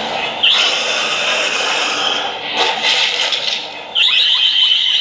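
Fight-scene sound effects: a harsh, noisy rush with a high screech about half a second in, then a sudden, louder high screech about four seconds in that holds and slowly falls in pitch.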